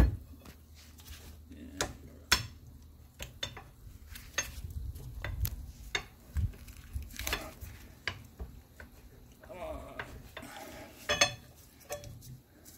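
Scattered metal clinks, taps and handling rattles of a hydraulic cylinder's gland and seals being worked onto its chrome piston rod by gloved hands, with a sharp knock right at the start.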